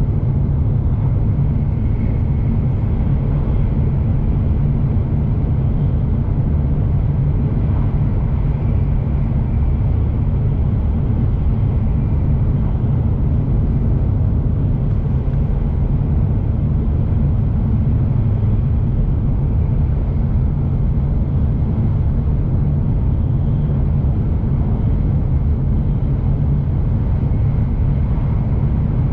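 Shinkansen bullet train running at speed, heard from on board: a steady, even low rumble with a faint high hum, unchanging throughout.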